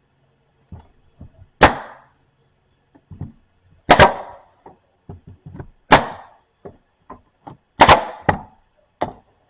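A small nail gun firing staples into thin wooden door-stop trim: four sharp shots about two seconds apart, the last one a quick double, with lighter knocks between them.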